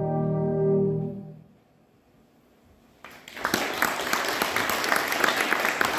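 Brass band holding its final chord, which dies away about a second and a half in; after a brief silence, audience applause breaks out and carries on.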